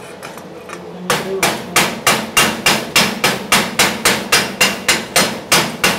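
Chipping hammer striking a fresh weld seam on aluminium plates, chipping the flux slag off. It starts with a few light taps, then from about a second in gives a rapid, even run of sharp metal-on-metal blows, about three and a half a second.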